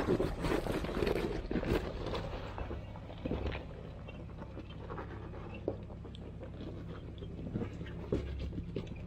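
Off-road 4x4 driving slowly on a rough trail: a steady low engine hum under crunching, scraping and knocking from the tyres and body over rocks and gravel, busiest in the first few seconds.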